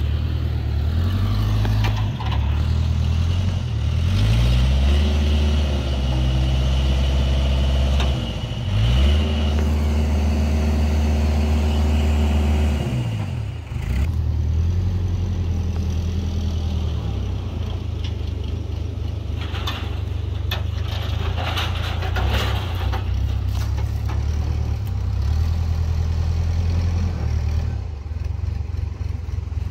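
Backhoe loader's engine running under load, its pitch rising and falling several times as the loader lifts a log, then running steadily. A patch of clattering comes about twenty seconds in.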